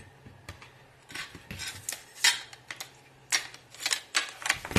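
Metal picture frame being reassembled by hand: a string of light metallic clicks and scrapes as its parts slide and knock together, the sharpest about two seconds in and again about three and a half seconds in.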